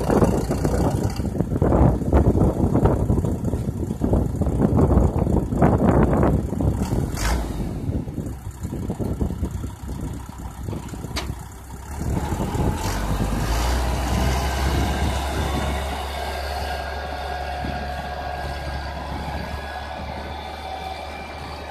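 A BC404 40 hp tractor's diesel engine running under load while pulling a plough. The sound is loud and uneven for the first half, then about halfway through it settles into a steadier hum that fades as the tractor pulls away.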